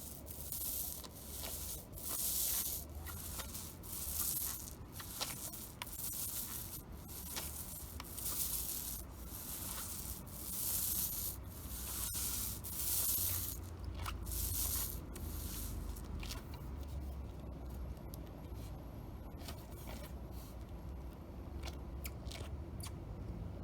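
Brush strokes rubbing back and forth across a roof surface, about one a second, becoming fainter and sparser after about fifteen seconds.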